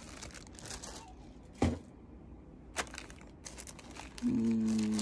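Thin plastic zip-top bags crinkling as they are handled, with a few sharp clicks and taps. Near the end a steady, even-pitched hum begins and is louder than the rustling.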